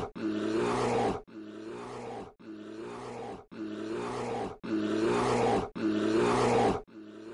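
A bear's growl, the same short growl repeated about once a second, seven times in a row, with some repeats louder than others.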